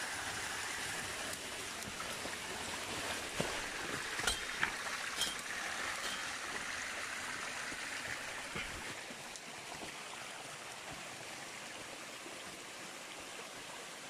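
Steady rush of running water from a rocky stream, a little softer after about nine seconds. A few sharp knocks of rubber-booted footsteps on stones between about three and five seconds in.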